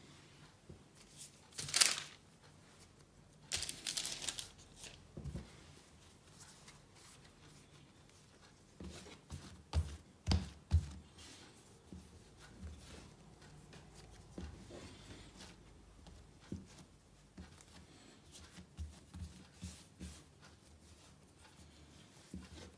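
Bread dough being shaped by hand and set onto a tray lined with baking paper: two brief rustles of the paper in the first few seconds, then soft thumps and taps as the dough is pressed and rolled on the bench.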